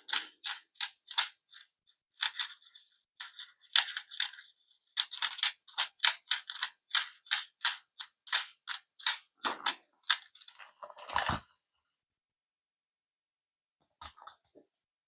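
Quick series of sharp metallic clicks, about two or three a second, from handling the metal tire-mounting tool on an RC beadlock wheel, ending in a short clatter about eleven seconds in; after that only a few faint ticks.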